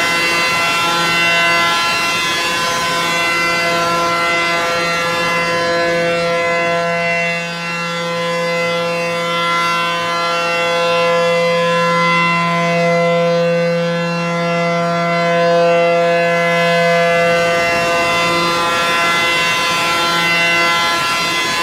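ACA P-10 outdoor warning siren sounding at full blast, holding a steady, loud tone at one pitch with no rise or fall.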